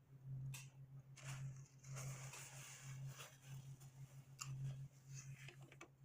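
Close-up chewing and wet mouth sounds of someone eating a sloppy joe sandwich, with a few soft clicks, over a steady low hum.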